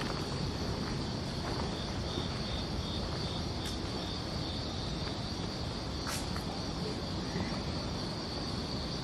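Insects chirring in a steady high-pitched chorus, with a second insect pulsing in an even rhythm for a few seconds early on, over a low background rumble. Two sharp clicks fall about a third and two-thirds of the way through.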